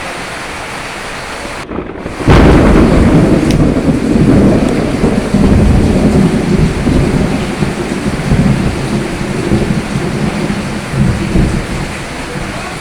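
Steady rain, then a loud clap of thunder about two seconds in that rolls on as a long rumble and slowly fades under the rain.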